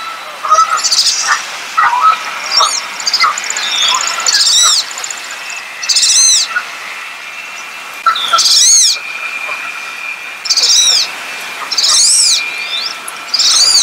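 Wood ducks calling: a run of high, thin whistles, each rising then falling, about six of them a second or two apart, with shorter, lower calls in the first few seconds.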